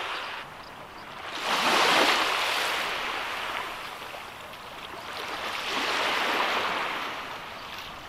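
Small waves washing onto a sandy shore, swelling up twice, about two seconds in and again near six seconds, and easing off between.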